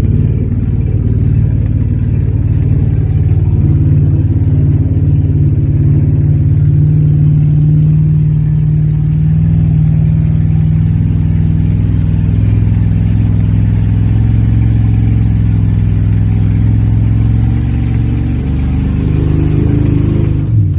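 1993 Ford F-150 pickup's engine running steadily under load as the truck drives. Its note rises near the end, then falls away abruptly.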